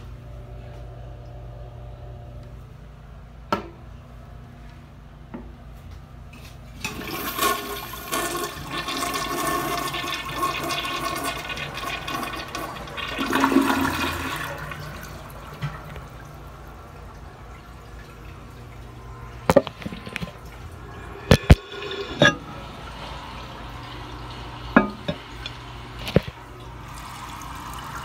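A tank-type toilet flushing: water rushes and swirls through the bowl for about seven seconds, loudest just before it drains. The tank then refills with a steady hiss, broken by several sharp knocks.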